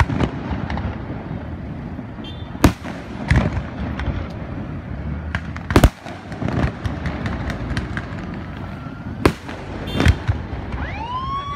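Fireworks going off: a handful of sharp bangs a second or more apart over a steady outdoor hubbub. Near the end a whistle rises and holds.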